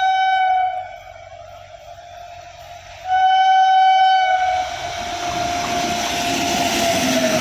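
Locomotive air horn sounding two blasts, the first ending just under a second in and the second starting about three seconds in. After the second blast the horn tone trails on, fainter and dropping slightly in pitch, as the rumble and clatter of the passing train rises.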